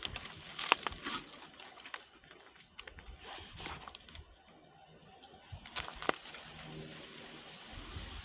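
Scattered rustles and light crackles of dry leaves and brush, a few sharper snaps among them, busiest at the start and again about six seconds in.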